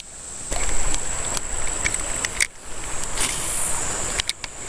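Wind rumbling on the microphone over the rush of a shallow mountain creek, dropping away briefly twice.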